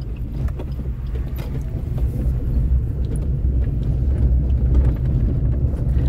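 Car engine and road noise heard from inside the cabin while driving: a steady low rumble with occasional light clicks and rattles.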